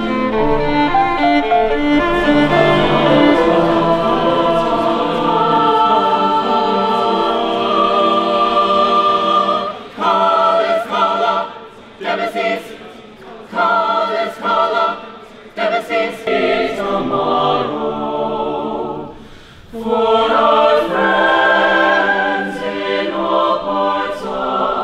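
Choir singing: long held chords at first, then from about ten seconds in short separated phrases with brief pauses between them, before fuller singing resumes near the end.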